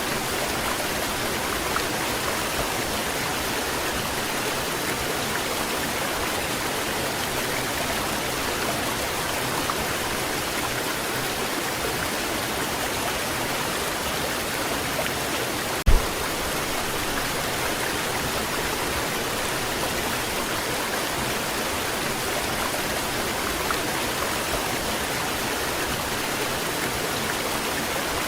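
Waterfall: water falling and splashing in a steady, even rush. A single brief thump about sixteen seconds in.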